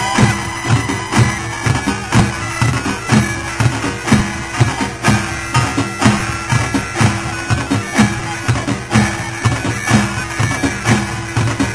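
Korean pungmul ensemble playing: buk barrel drums beat a steady rhythm of about two strokes a second under a reedy wind instrument holding long notes.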